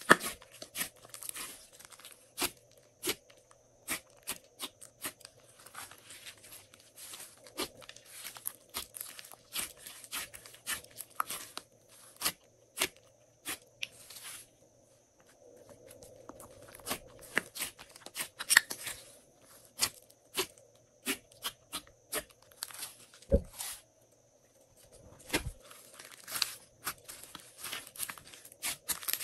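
Hands kneading, squeezing and stretching soft glossy slime: sticky squishing with a dense run of sharp clicks and crackles. It goes quieter for a moment a little past halfway.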